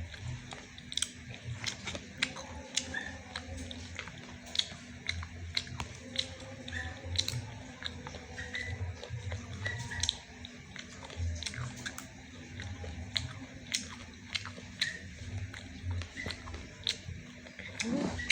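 Close-up chewing of crispy fried sweet corn: a person biting and chewing, with irregular crisp crunches and crackles throughout.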